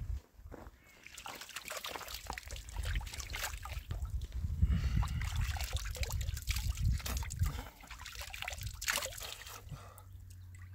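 Water trickling and splashing, with many irregular clicks and a low rumble that is loudest in the middle.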